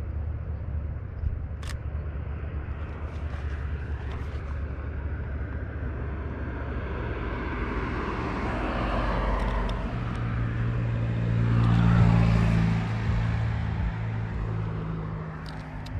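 A motor vehicle passing outdoors: a steady low engine hum over general outdoor noise, growing louder to a peak about three-quarters of the way through and then fading away. A few short sharp clicks stand out, one near the start and a couple near the end.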